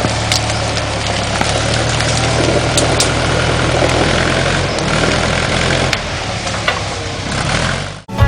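Forklift engine running steadily, with scattered sharp cracks and clanks over it; the engine sound cuts off suddenly near the end.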